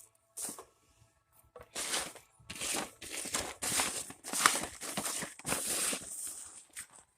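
About six short, harsh rustling noises in quick succession, of dry material being crumpled or torn.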